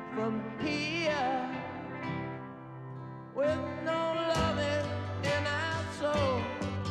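A slow song, a singer holding notes with vibrato over instrumental backing. The music thins and softens for a moment, then the full accompaniment comes back in about three and a half seconds in, with a bass line joining a second later.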